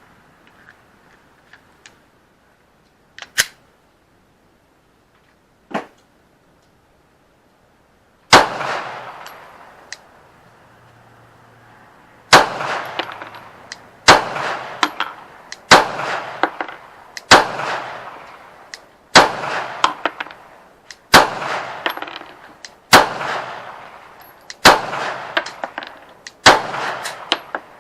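Glock 17 MOS 9mm pistol being fired in slow, deliberate single shots: ten loud reports about two seconds apart, each trailing off in an echo. Two fainter cracks come a few seconds before them.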